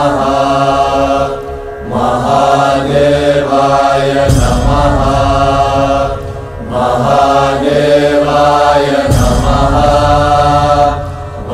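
Chanted mantra music: a voice chanting in long held phrases over a steady low drone, pausing briefly between phrases. A sharp struck hit comes about four seconds in and again about nine seconds in.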